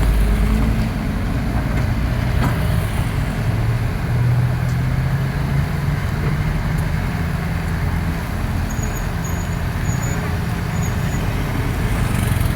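Excavator's diesel engine running steadily under load.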